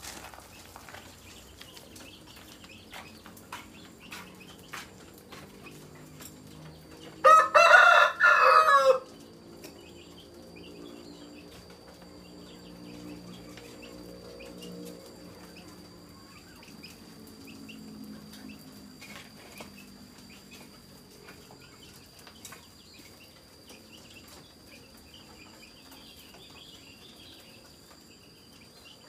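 A rooster crows once, loud, about seven seconds in, the call lasting under two seconds. Before and after it there are only faint background sounds, with a faint steady high tone starting just after the crow.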